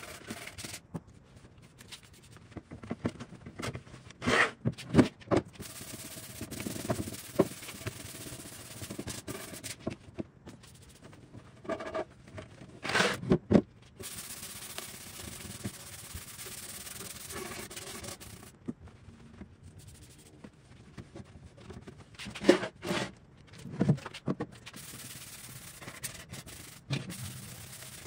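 Hand rubbing on the wooden dresser drawers: scuff sanding with a fine sanding sponge and wiping down with a rag to clear contaminants before gel stain, a soft rubbing. Three clusters of knocks and scrapes come from the drawers being handled, about four seconds in, around twelve seconds in, and near twenty-three seconds in.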